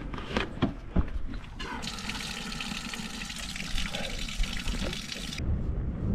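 Water running or pouring: a steady rushing hiss that starts about two seconds in and cuts off suddenly, after a few sharp clicks.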